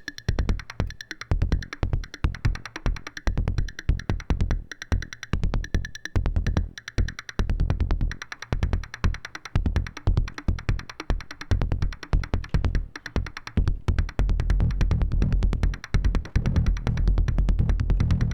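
Make Noise Shared System Eurorack modular synth playing a fast drum-and-bass style electronic beat. The percussion is synthesized from oscillators, noise and envelopes rather than drum modules: a quick pattern of short hits over a deep bass. Near the end the low bass becomes denser and more continuous.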